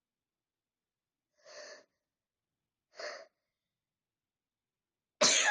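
A person's two short, quiet breathy intakes, then a loud sneeze near the end, brought on by a rolled-up tissue twisted in the nose.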